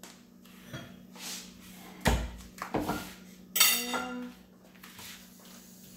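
Kitchen clatter as dishes are handled: a sharp knock with a thud about two seconds in, two lighter knocks, then a dish clinking with a short ring.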